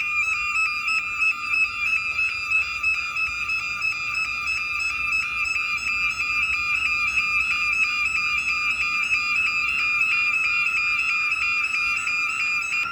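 Factory fire alarm siren sounding in a test: a loud, high electronic tone that warbles rapidly and evenly, several times a second.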